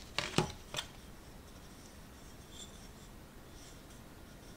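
Wooden spatula (genbera) picked up out of a cardboard kit box: a quick cluster of wooden knocks and scrapes right at the start, one more knock a moment later, then faint handling sounds.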